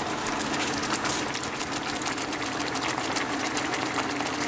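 Thickened butter-and-broth pan sauce with veal cutlets bubbling and sizzling at a steady simmer in a frying pan, a continuous crackle of bursting bubbles, with a steady low hum underneath.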